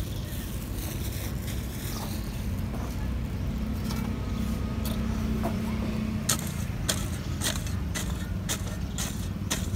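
Small short-handled hoe chopping into dry, clumpy soil: a quick run of sharp strikes, about three a second, from about six seconds in. Under it a steady low rumble throughout.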